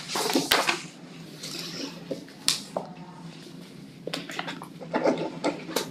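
Scattered small clicks and rustles of hands and papers on a meeting table, over a steady low room hum.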